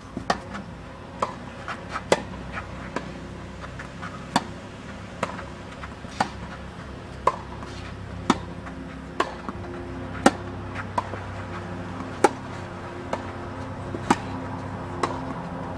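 Tennis ball struck back and forth by rackets in a quick volley rally, a sharp hit about once a second, alternating louder and softer as the near and far player strike it.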